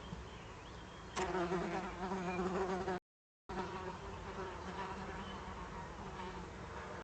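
A fly buzzing close to the microphone, a wavering drone that grows louder about a second in. The audio cuts out completely for about half a second near the middle.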